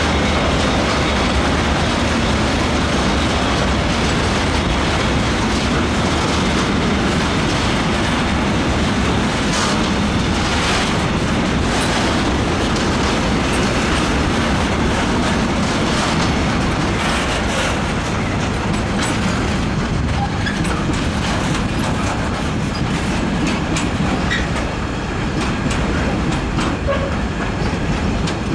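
Container train of loaded flat wagons rolling past close by: a steady rush of wheel and rail noise with the clickety-clack of wheels over rail joints.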